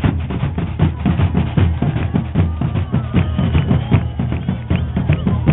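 A group of large double-headed street drums beaten with long sticks in a steady, driving rhythm, deep booming strokes following close on one another.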